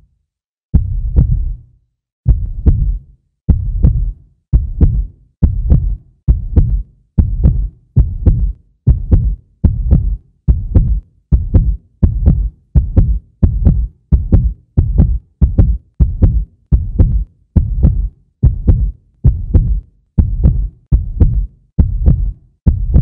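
Deep, heartbeat-like bass thumps, one at a time, in a beat that keeps quickening. They start about a second and a half apart and speed up to nearly two a second.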